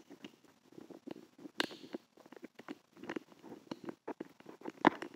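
Small plastic LEGO bricks and their packaging being handled: scattered light clicks and clatters as pieces are picked through and pressed together, with a sharper click near the end.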